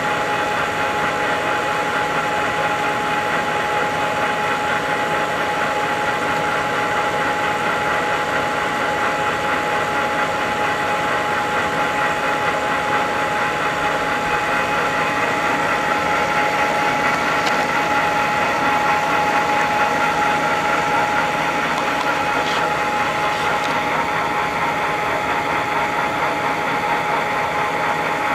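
Wilton 2035 geared-head floor drill press running with its spindle under power, giving a steady mechanical whine from the head.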